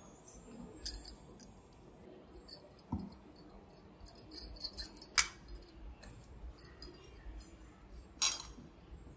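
Light metallic clinks and scrapes of a spoon and a table knife against the plate as chocolate spread is scooped onto a crepe and spread over it, with a few sharper clinks about 1, 5 and 8 seconds in.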